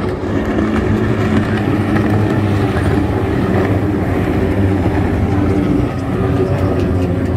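Several GT-15 class racing powerboats' outboard engines running at full speed together as the boats race past, a steady, layered engine drone.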